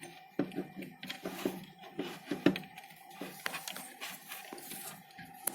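Scattered light clicks and taps of handling at a workbench, over a faint steady high hum.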